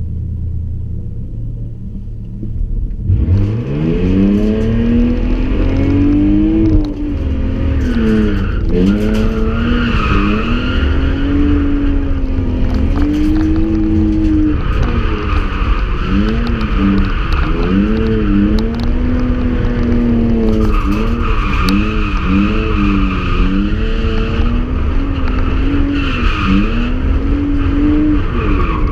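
BMW E46 328i's 2.8-litre straight-six heard from inside the cabin, revving up about three seconds in and then rising and falling again and again under throttle. The tyres squeal in several long stretches as the car drifts.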